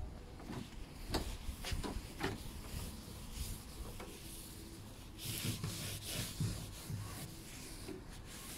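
Rubbing and scraping, with a few sharp clicks about one to two seconds in and a stretch of hiss about five seconds in.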